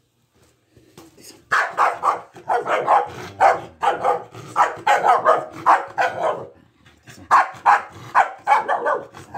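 Mixed-breed dog barking excitedly in quick runs of about two to three barks a second, with a short break a little after the middle. The dog is worked up for the bite toy in prey-drive play.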